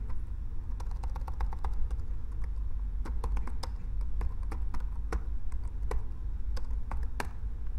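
Computer keyboard typing: scattered, irregular key clicks, the loudest near the end, over a steady low hum.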